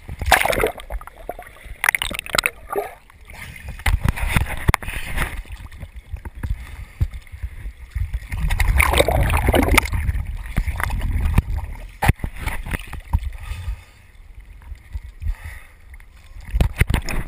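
Sea water sloshing, gurgling and splashing against a camera housing bobbing at the water's surface during snorkeling, with scattered knocks and a louder, busier stretch of churning water about halfway through.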